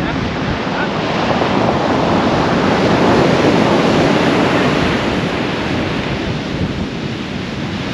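Big swells breaking and washing up a sand beach, swelling to a peak about three seconds in and then easing off, with gale-force wind buffeting the microphone.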